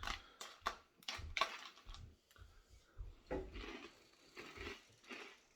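Small crisp clicks and soft knocks of dry breakfast cereal being crunched and handled, coming irregularly.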